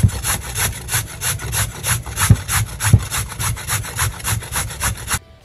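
Raw sweet potato being grated on a hand-held metal grater: quick, even rasping strokes, about four or five a second, with two low knocks midway. The strokes stop suddenly near the end.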